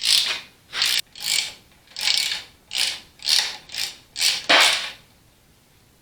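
Hand socket ratchet clicking through about nine quick back-and-forth strokes as a bolt is worked loose, stopping about five seconds in.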